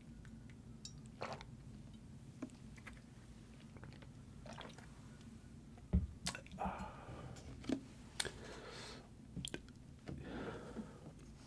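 Close-miked mouth sounds of someone swigging Malibu rum straight from the bottle: small wet clicks and swallows. About six seconds in, a drink is set down on the wooden board with a thump, followed by a few short breathy mouth noises and lip smacks.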